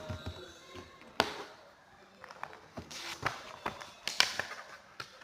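Handling sounds: an irregular string of sharp taps and clicks from materials being handled, the sharpest a little over a second in and about four seconds in.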